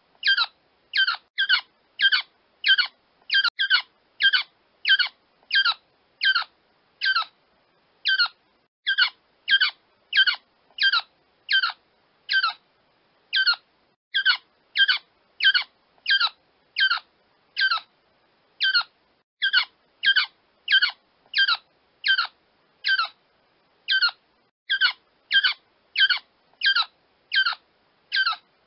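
A quail crowing: short, sharp calls repeated about one and a half times a second for the whole stretch, with a slightly longer pause now and then.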